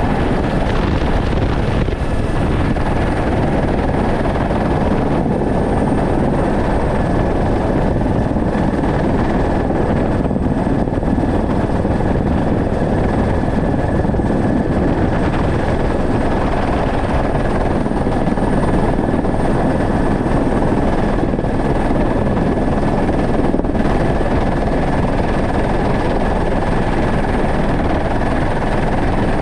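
Helicopter engine and rotor in steady flight, heard from inside the cabin: a loud, even drone with a steady high whine running over it.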